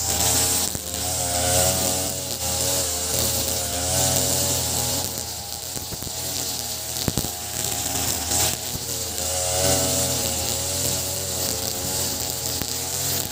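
Ogawa BG330 33cc two-stroke brush cutter running at cutting speed, its 2.4 mm square nylon line whipping through long grass. The engine note wavers up and down as the line meets the grass, with a few sharp ticks.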